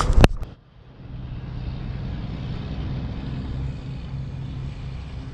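A few sharp clicks at the very start, then a steady low outdoor rumble with faint hiss, with no distinct events.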